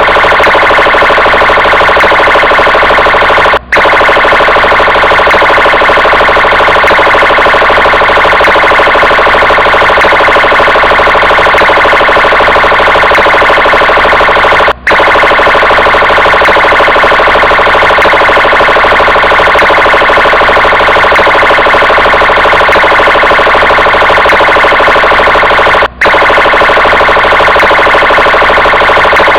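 Electronic police siren sounding loudly and without pause, holding a steady many-toned sound. It cuts out for a split second three times, about every eleven seconds.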